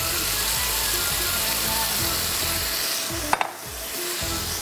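Chicken and yogurt marinade sizzling in a hot wok over a gas flame, with a short sharp clatter about three seconds in.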